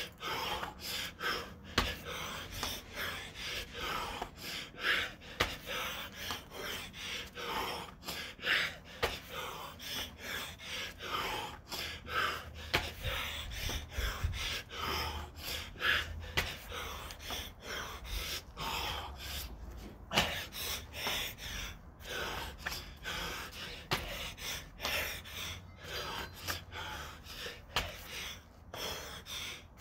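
Heavy, gasping breaths of a man deep into a seven-minute burpee set, panting in and out about once a second from the exertion. A sharper sound stands out every three to four seconds as each rep lands.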